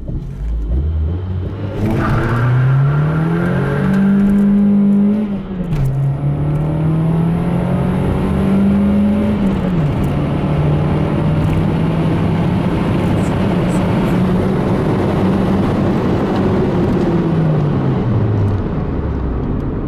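Nissan SR20DE 2.0-litre four-cylinder engine, with a GT header and no catalytic converter, accelerating hard from a standstill: the revs climb and drop twice at the gear changes into second and third, then run steady before falling near the end as the car eases off.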